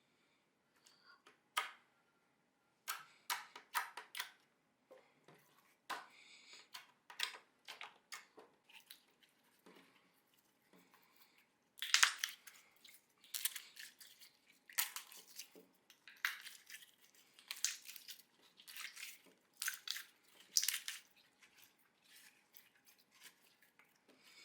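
Hands pressing, poking and stretching slime, giving a string of irregular wet pops and crackles that grow louder and closer together about halfway through.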